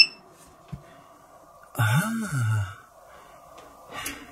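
A man's wordless "hmm" about two seconds in, its pitch rising then falling, over a faint steady hum.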